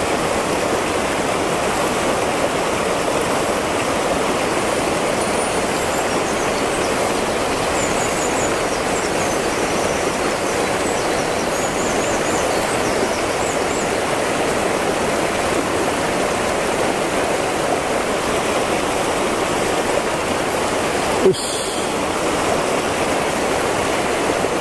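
River water rushing steadily over a mountain stream's riffles, with faint high twittering now and then and a single short knock late on.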